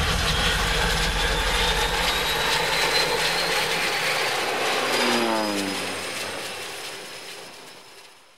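Ayres Thrush crop-spraying aircraft's engine and propeller running steadily, then the aircraft passing low with its pitch falling as it goes by, fading out near the end.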